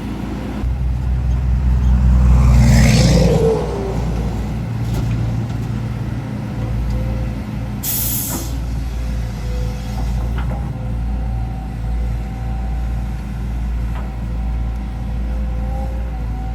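Heavy diesel machinery of an excavator and a ten-wheel dump truck running steadily. The engine swells louder for about three seconds near the start, with a whine falling in pitch, and a short sharp air hiss comes about eight seconds in.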